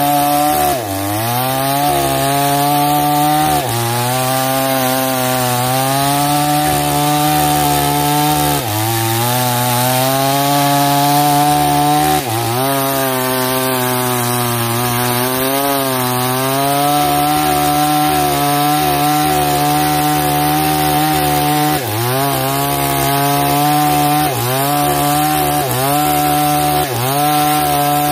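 New 22-inch NewWest two-stroke chainsaw running at high revs while cutting through a thick sonokeling (Indian rosewood) trunk. Its pitch dips briefly about six times as the chain bogs in the wood, then climbs back each time.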